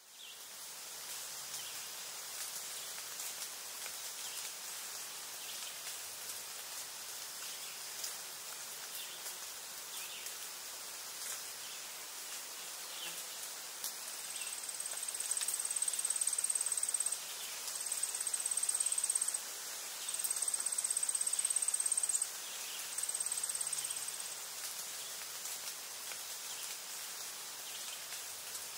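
Outdoor insect chorus: a steady high hiss with scattered faint ticks, joined about halfway through by a loud, high, even insect trill in four long stretches of two to three seconds each with short breaks between.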